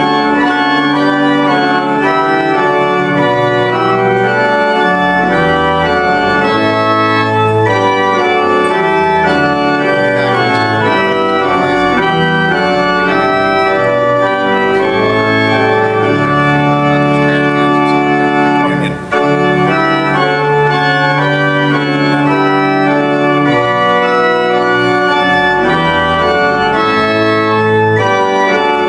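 Church pipe organ playing a hymn in slow, sustained chords that change about every second, with one brief break about nineteen seconds in.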